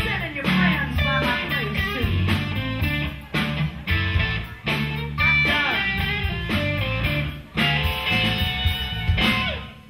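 Live blues-rock band playing an instrumental passage: electric guitar with bending notes over bass guitar and drums. The band stops together near the end.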